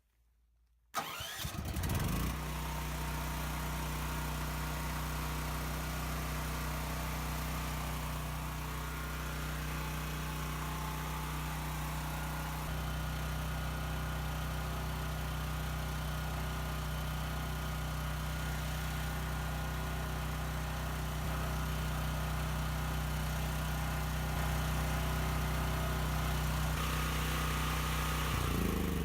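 A new portable generator's engine, run on propane, is electric-started with the choke on and catches at once about a second in. It then runs at a steady speed, and near the end it is shut off and winds down with a falling note.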